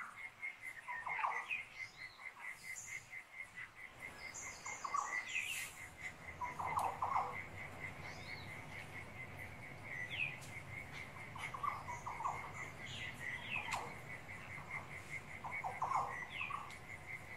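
Recorded bush soundscape: crickets chirping in a fast, even pulse, with short bird chirps and calls coming and going over it.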